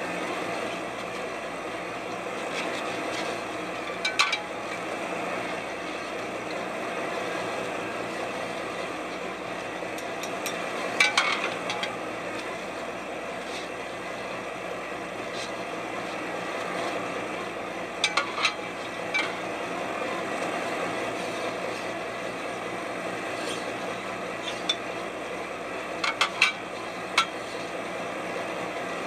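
Fishing boat's engine running steadily, with a few sharp clanks about 4, 11, 18 and 26 seconds in.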